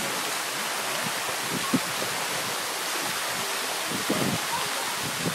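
Steady rush of churning pool water, with a few light splashes from a toddler wading, the sharpest about a second and a half in.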